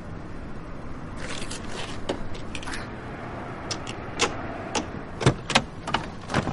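Screwdriver forcing a BMW's door lock: short metal scrapes from about a second in, then a run of sharp clicks, the loudest in the second half.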